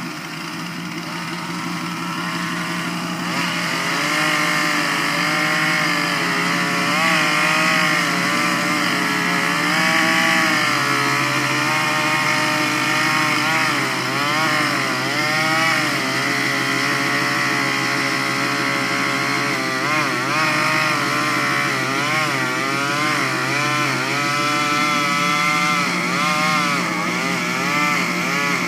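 Chainsaw running under load, its engine pitch repeatedly dipping and rising again as it bites into and works through the wood.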